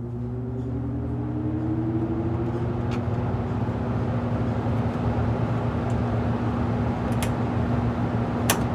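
Haier 5,200 BTU window air conditioner's fan motor switching on at low speed, spinning up with a rising whine and then running with a steady hum and rush of air. A few sharp clicks come near the middle and near the end.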